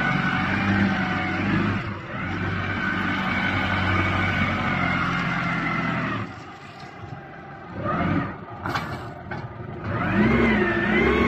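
Diesel engine of a TCM FD30 3-ton forklift running as the forklift is driven and turned. It drops to a quieter stretch a little past the middle, then revs up louder, its pitch wavering, near the end.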